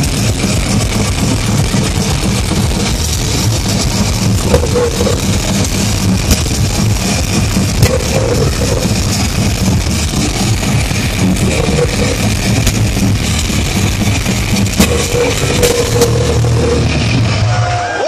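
A death metal band playing live: heavily distorted guitars, bass and drums, loud and dense. The music stops suddenly near the end.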